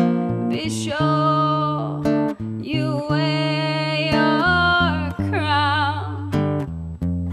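A man singing over acoustic guitar chords, holding long notes with vibrato, in a live, unplugged performance.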